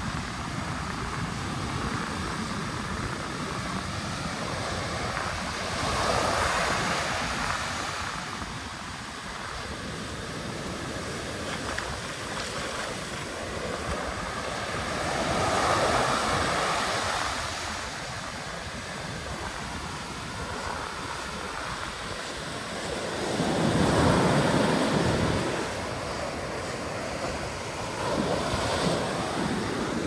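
Ocean surf breaking and washing up a sandy beach: a steady rush of water that swells three times, about every eight seconds, loudest near the end.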